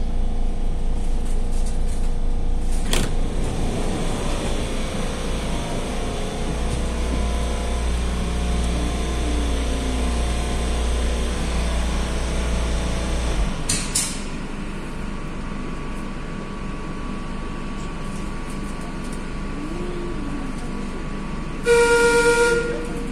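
Madrid Metro Serie 5500 train running, its motor whine falling steadily in pitch as it slows. About 13 seconds in the low hum cuts off suddenly, followed by a brief hiss. Near the end the train's whistle gives one short blast of about a second.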